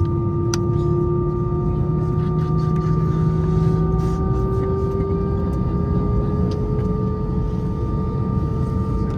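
Airbus A319 cabin noise on the ground: a steady rumble and hum with a few steady whines, one of which slowly rises in pitch, and a single light click about half a second in.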